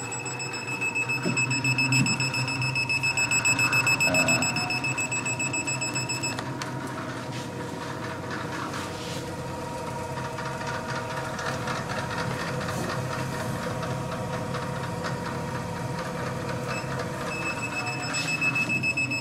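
Vibra-Trim VT400 twin-motor vibration platform running hard under a standing user's weight: a steady low hum with a high-pitched whine, loudest a few seconds in. The whine drops out about six seconds in and comes back near the end.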